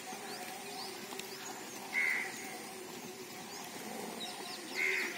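Bird calls: two short, loud calls about three seconds apart, over the steady chirping of small birds and a faint steady hum.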